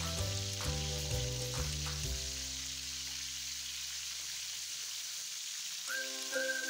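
Chicken drumsticks frying in hot oil with ginger in a wok: a steady sizzle, with a few light clicks as a utensil pushes the pieces around in the first two seconds.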